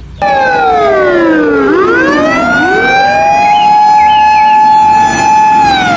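Fire engine siren wailing. Its pitch falls for about two seconds, rises back up and holds high, then starts to fall again near the end.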